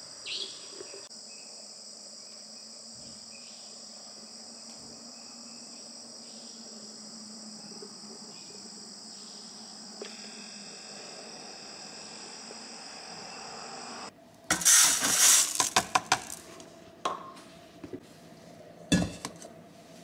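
Night insects chirring steadily in a high, even drone. About fourteen seconds in it cuts off, and a loud clatter of dishes and utensils follows, with several sharp knocks over the next few seconds.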